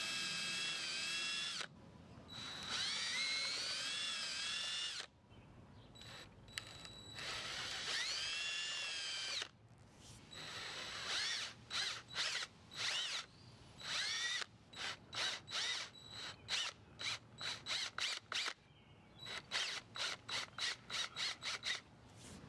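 Handheld power drill boring out a wooden plug in a chair leg, stepping up through larger bits. Three longer runs in which the motor's whine rises as it comes up to speed, then many short trigger bursts, each a quick spin-up, over the second half.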